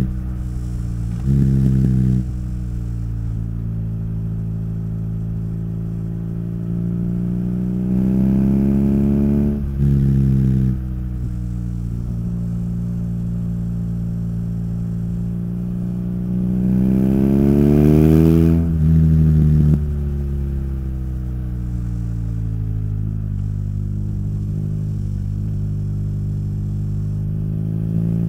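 Motorcycle engine and exhaust under way: the engine note climbs as the bike accelerates, drops back at a couple of gear changes, then settles into a steady cruising note.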